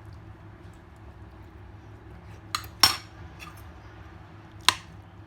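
Utensils clinking against dishware during a meal: three short sharp clinks, the loudest just under three seconds in and another near the end.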